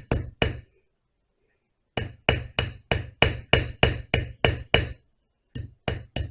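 Ball-peen hammer tapping the rivet heads of a spliced .404 chainsaw chain against a sickle blade used as an anvil, peening the rivets over. Sharp metallic strikes at about three a second: two at the start, a run of about ten after a short pause, and three more near the end.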